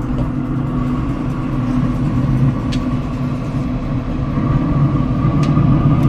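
A steady mechanical hum with a low drone, growing slightly louder toward the end.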